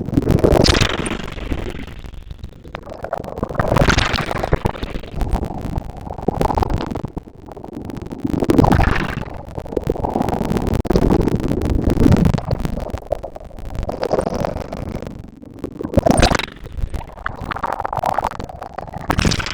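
Sea waves breaking and washing onto a beach, the noise swelling and ebbing every few seconds.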